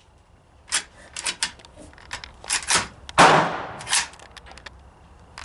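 A run of sharp clicks and clacks, and about three seconds in one louder bang with a short noisy tail, from handling and firing a firearm.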